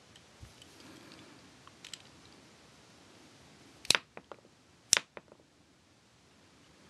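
Spring-loaded missile launcher on a Transformers Generations Voyager Springer action figure firing twice, a second apart, about four seconds in: two sharp plastic snaps, each followed by a few lighter clicks. Faint rustle of hands handling the plastic toy before the shots.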